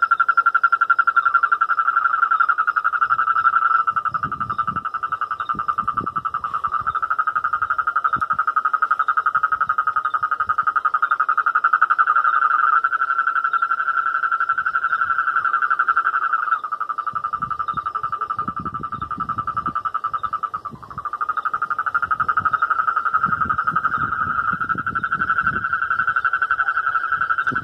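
Breeding chorus of many toads and frogs calling together at night in a pond: a loud, continuous, dense trilling that keeps going with only a brief dip about two-thirds of the way through.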